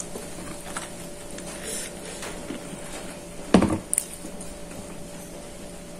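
Quiet sounds of eating rice and vegetables by hand off a plate: light clicks and small handling noises over a steady low hum, with one short thump a little past halfway.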